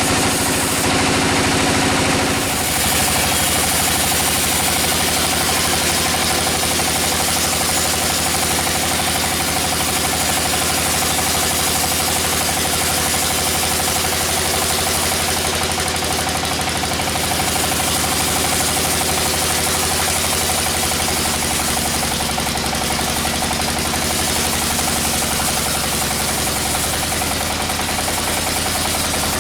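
Sawmill machinery running steadily, an engine-driven saw, with a continuous loud machine noise whose tone shifts slightly about two seconds in.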